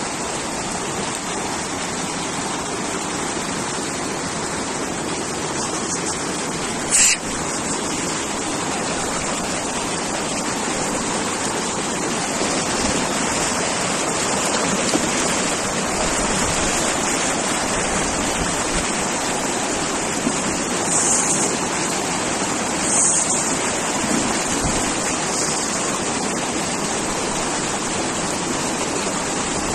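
Shallow mountain stream rushing over rocks: a steady, loud wash of water. A short sharp sound cuts in about seven seconds in.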